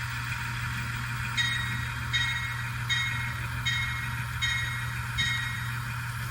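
N-scale model diesel locomotive's sound decoder playing a running diesel engine through a small speaker. About a second in, a locomotive bell starts ringing: six strikes, roughly one every three-quarters of a second.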